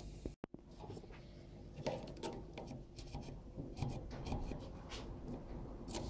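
Faint rubbing and light ticks of a washing-machine control circuit board being handled and turned over in the fingers.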